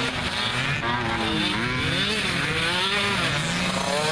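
Mini quad (youth ATV) engines revving, the pitch rising and falling over and over as the riders throttle up and back off.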